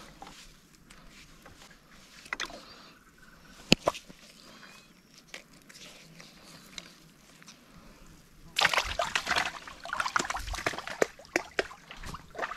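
Water splashing: a sudden burst of vigorous splashing starts about two-thirds of the way in and goes on in irregular surges. Before it there are a few light knocks and one single sharp knock about four seconds in.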